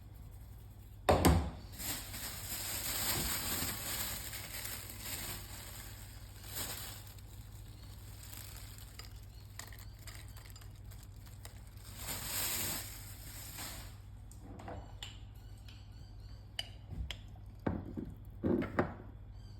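Kitchen utensils and dishes being handled: a sharp knock about a second in, stretches of scraping and rustling, and a few short clicks and knocks near the end, over a steady low hum.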